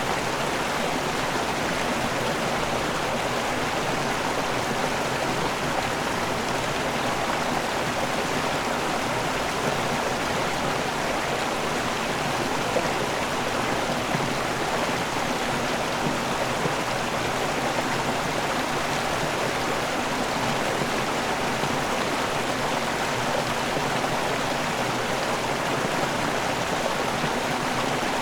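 A river waterfall: water pouring and rushing steadily, an even unbroken roar of falling water.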